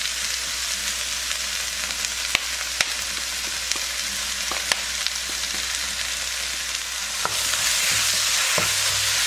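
Sliced onion, carrot and leek sizzling as they stir-fry in oil in a nonstick pan, with a few sharp clicks. About seven seconds in, the sizzling grows louder as a wooden spatula stirs the chili seasoning through the vegetables.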